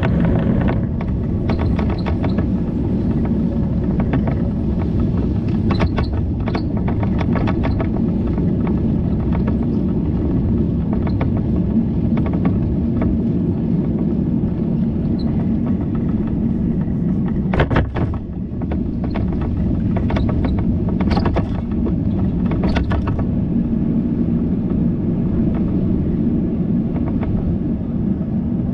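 Steady low rumble of a bicycle in motion, tyres on the road and air over the microphone, with scattered clicks and knocks and one larger knock about two-thirds of the way in.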